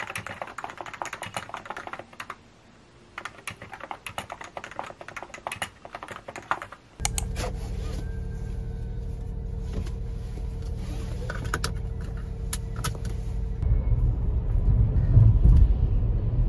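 Rapid typing on a computer keyboard, dense key clicks with a brief pause, for about seven seconds. Then a sudden cut to a steady low rumble that grows louder near the end.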